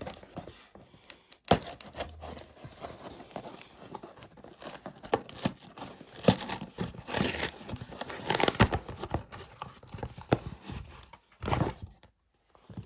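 Packaging being handled and opened: crinkling and tearing of wrapping, with many irregular clicks and knocks of the box and its contents.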